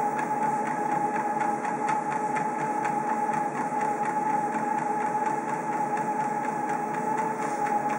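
Electric treadmill running: a steady motor whine over belt noise, with faint irregular taps from a Basenji's paws walking on the moving belt.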